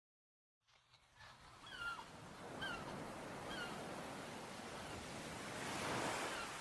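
A brief dead silence, then a bird's short calls repeated about once a second over the steady wash of surf, with a wave swelling near the end.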